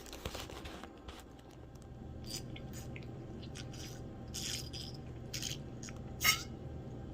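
A person drinking fizzy Coca-Cola: wet mouth and swallowing sounds with scattered sharp clicks, a noisy burst in the first second and the loudest click about six seconds in.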